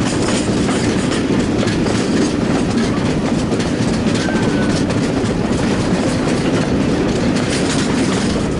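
Railway carriage running along the track: a steady rumble, with the wheels clicking over the rail joints.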